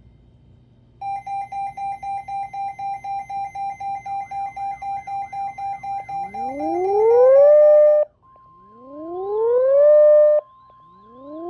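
Electronic emergency-alert tones: a rapid beeping about five times a second, then rising whoop tones that climb, hold and cut off, about every two and a half seconds, with a steady tone joining under them at about 8 s.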